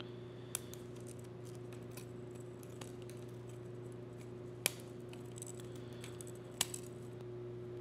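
Small sharp snaps and clicks of plastic support material being broken off a 3D-printed spiral track by hand, with three louder snaps spread through, over a steady low hum.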